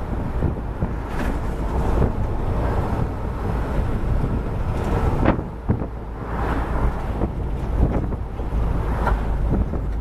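Open-sided vehicle on the move: steady engine and road rumble with wind buffeting the microphone.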